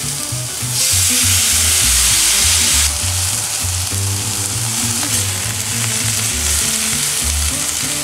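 Shiitake mushroom soaking broth poured into a hot frying pan of onions, mushrooms and tofu: a loud burst of sizzling about a second in that lasts around two seconds, then settles to a steady frying sizzle while a spatula stirs the pan.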